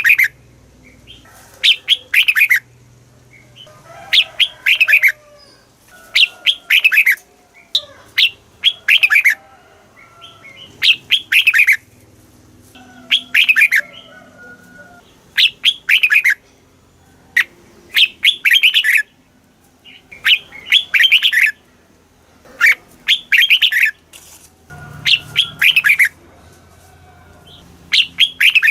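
Red-whiskered bulbul singing: short, bright phrases of quick falling notes, repeated about every two seconds.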